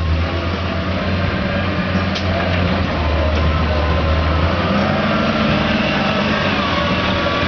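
JCB backhoe loader's diesel engine running steadily under work, with a couple of faint clicks about two and three seconds in.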